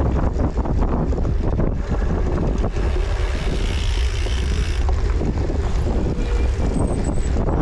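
Wind rumbling on the microphone over the rattle and tyre noise of a cyclocross bike being raced over rough ground, with a dense clatter of small knocks throughout and a steadier hiss for a couple of seconds in the middle.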